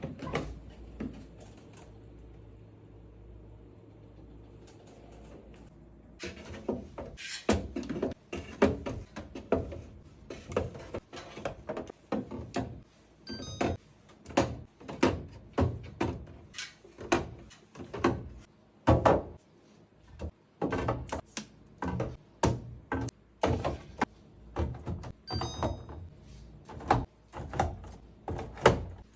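Food containers and bottles being set into a refrigerator: after a low steady hum for the first several seconds comes a quick, uneven run of knocks and clatters, with a couple of ringing glass-like clinks.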